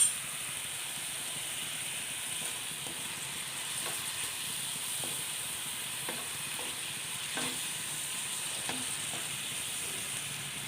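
Bird's eye chilli pickle cooking in coconut oil and water in a pan, with a steady sizzle and a few faint ticks and pops.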